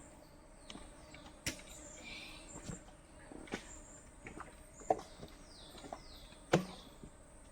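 Scattered knocks and taps, the loudest two about five and six and a half seconds in, over a quiet background with a few short high falling chirps and a faint steady high tone; no engine running.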